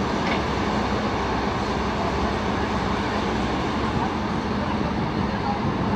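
Diesel engines of hydraulic excavators running steadily as they dig, a constant low hum.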